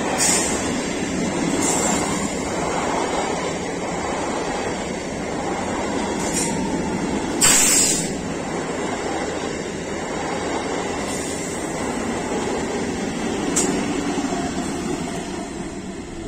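Electric multiple unit (EMU) local train passing close by at speed: steady wheel-and-rail running noise, broken by several short sharp hissing bursts, the loudest about halfway through.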